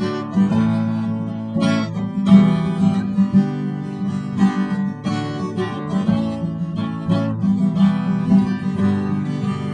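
Acoustic guitar strumming chords in a steady rhythm, an instrumental break between sung verses.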